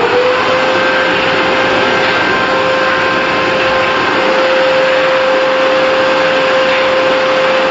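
Canister vacuum cleaner just switched on, its motor whine rising in the first moment to a constant pitch. It then runs steadily, with a loud rush of air through the hose.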